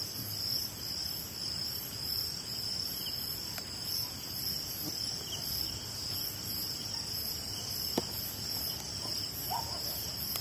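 Chorus of night insects, crickets among them, chirping steadily in a high-pitched pulsing drone, with a single sharp click about eight seconds in.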